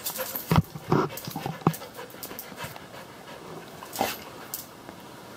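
An American Staffordshire terrier panting, with several short knocks in the first two seconds and another about four seconds in.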